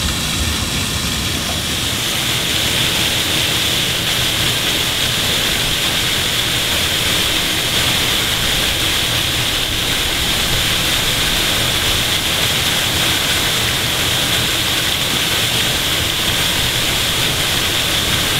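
A fountain's jets spraying and splashing into the basin: a steady, unbroken noise of falling water.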